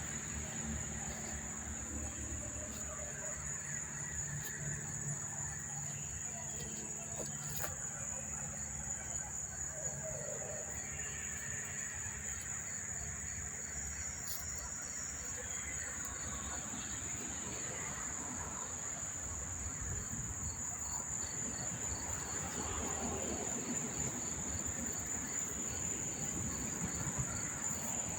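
Many crickets chirping together in a steady, high-pitched, continuous chorus.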